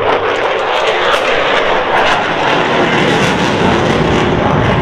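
A loud, steady aircraft engine noise from an airplane at an air show, with a deeper rumble building near the end.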